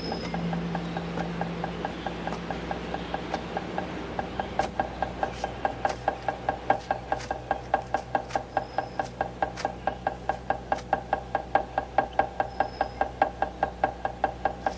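A Buddhist wooden fish (muyu) is tapped in a steady, quick rhythm of about four knocks a second, growing louder about four seconds in. The tail of background music fades out at the start.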